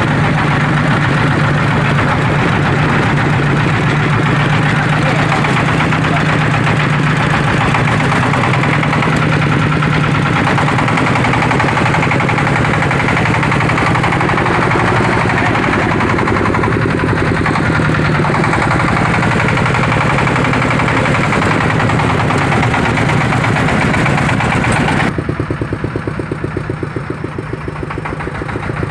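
Engine of a homemade 4x4 plantation hauler running steadily and loud, heard close up by its belt-driven drivetrain. About 25 seconds in it drops abruptly to a quieter, duller running.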